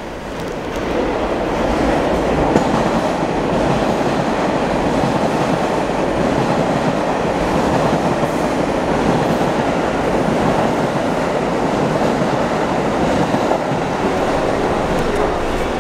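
New York City subway train running along the open-cut tracks, a steady rumble of wheels on rail with some clickety-clack. It builds about a second in, and there is one sharp click a couple of seconds in.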